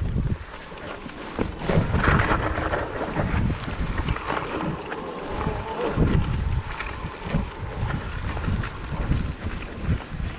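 Wind buffeting an action camera's microphone in gusting low rumbles while a mountain bike rolls over rough, grassy singletrack, with scattered clicks and rattles from the bike over the bumps.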